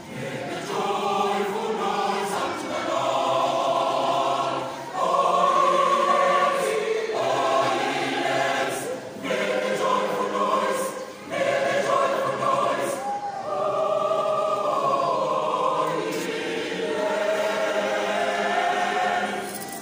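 Mixed choir of women and men singing a choral piece in several parts, in phrases with short breaks between them.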